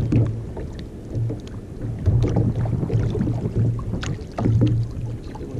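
Small waves lapping and slapping against the hull of a plastic sit-on-top kayak, in uneven low thumps with faint clicks.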